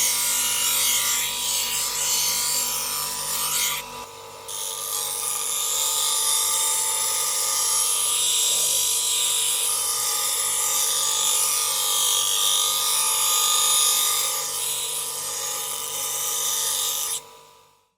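Electric angle grinder running with a steady high whine and a harsh, hissing grind as the disc works on metal. It drops off briefly about four seconds in, then runs on and dies away near the end.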